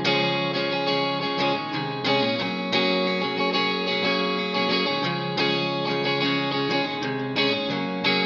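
Background music led by guitar, with plucked and strummed notes in a steady rhythm.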